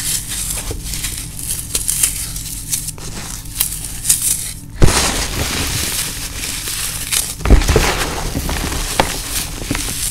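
Dry floral foam being crushed and squeezed by hand: a dense, crisp crackling crunch with louder crunches about five seconds in and again past seven seconds.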